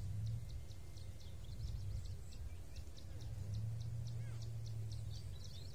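Outdoor riverside ambience: a steady low rumble under a rapid run of short, high chirps, about four or five a second, with a brief bird-like call about four seconds in.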